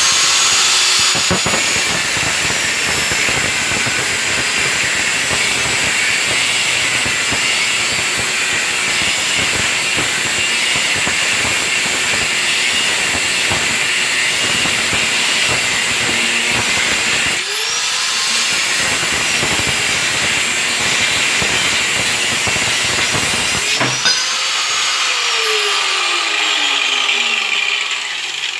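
Angle grinder with a thin stainless-steel cutting disc running at speed and cutting sheet steel: a loud, steady, hissing screech. About two-thirds of the way through it dips and spins back up, and near the end it is switched off and winds down with a falling whine.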